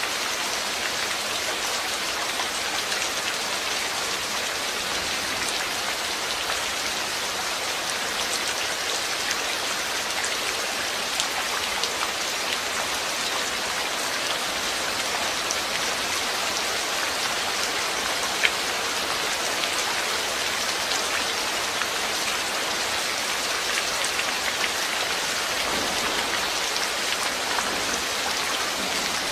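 Steady rain falling, a dense even patter of drops on surfaces, with one sharper drop tick about eighteen seconds in.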